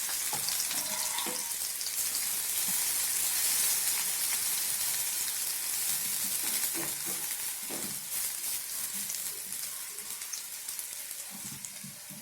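Chopped onions and cumin seeds sizzling in hot oil in a kadai, stirred now and then with a few light knocks of the utensil; the sizzle slowly dies down toward the end.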